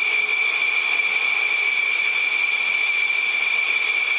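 Dassault Rafale fighter's jet engines idling on the ground: a steady high whine over a hiss.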